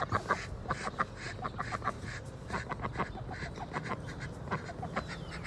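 Ducks quacking in a rapid stream of short calls while being fed.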